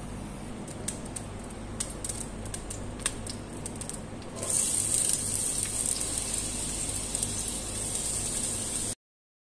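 Scattered crackles from oil heating in a steel pot, then, about four and a half seconds in, a louder steady sizzle as chopped onion goes into the hot oil. The sound stops abruptly near the end.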